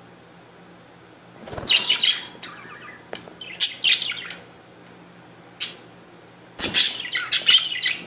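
Budgerigars chirping and chattering in short bursts of quick, scratchy high notes: two bursts in the first half, a single chirp a little past the middle, and a longer, busier burst near the end.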